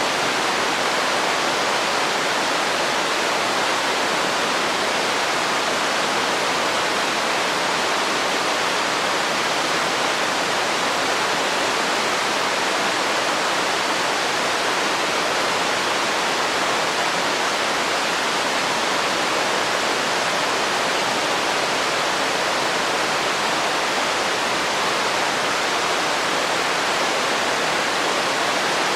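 Waterfall: a steady, even rush of falling water with no let-up or change.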